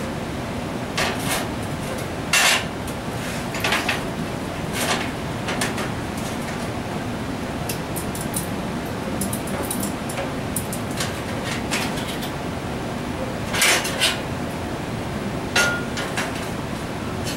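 Irregular clanks and clinks of metal parts being handled and set down, about a dozen over the stretch, one with a brief ring, over a steady shop background noise.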